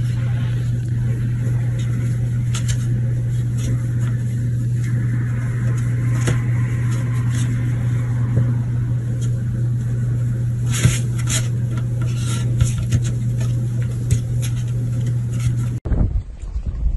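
A steady low machine hum, with scattered light taps and clicks over it. The hum cuts off suddenly about a second before the end.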